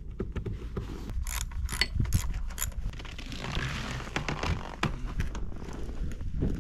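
Socket ratchet clicking in short runs, with metal knocks, as the nuts holding a snowmobile's ski runners (carbide wear bars) are worked loose to replace runners that have worn through.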